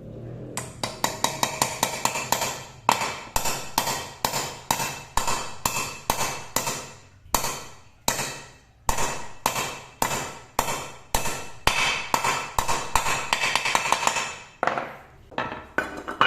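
Hammer striking metal over and over, each blow with a short metallic ring. It starts with a quick run of light taps, then settles into steady blows about two a second, which thin out near the end.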